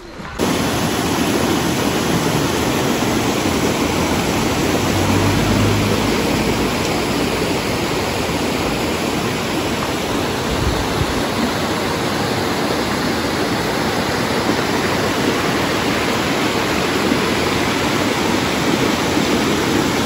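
Mountain stream rushing over rocks: a steady, even rush of flowing water that cuts in suddenly about half a second in.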